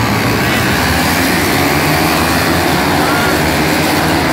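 Racing motorcycle engines running in a steady, loud drone.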